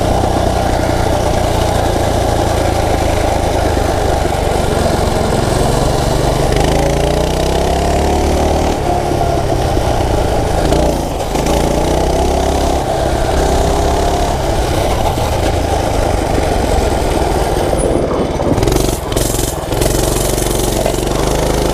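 A Coleman mini bike's small single-cylinder four-stroke engine running as it is ridden, its pitch shifting up and down with the throttle, under heavy wind noise on the microphone. A few knocks come near the end.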